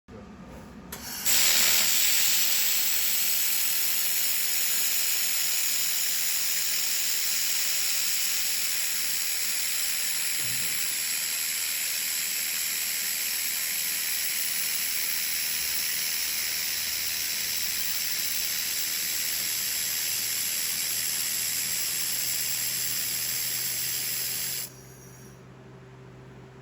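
Handheld fiber laser welder laying a continuous weld: a loud, steady hiss of shielding gas and weld plume. It starts sharply about a second in and cuts off suddenly near the end, leaving a faint machine hum.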